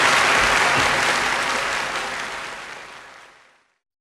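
Audience applauding, the clapping fading out to silence over the last two seconds or so.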